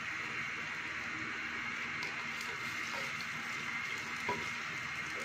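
Sliced onions sizzling steadily in hot oil in a clay handi as they start to fry, with one light knock about four seconds in.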